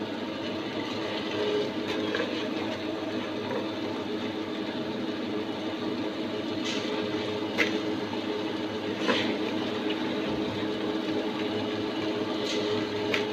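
A few sharp metallic clinks as soaked rice is loaded into an open steel mixer-grinder jar, the loudest near the middle and at the very end, over a steady low background hum.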